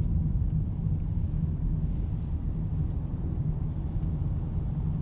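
Car being driven, with a steady low rumble of engine and tyres on the road heard from inside the cabin.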